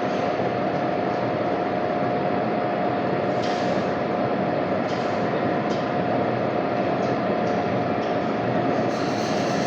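Metal lathe running steadily: a constant whine over an even mechanical hum.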